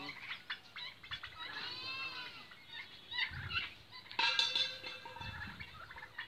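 Birds calling over and over: a series of high, pitched calls that rise and fall in short arcs, loudest about four seconds in, with a few short clicks between them.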